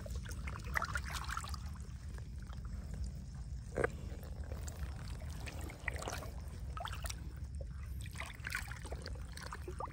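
Faint trickling and small splashes of shallow pond water, over a steady low rumble, with one brief knock about four seconds in.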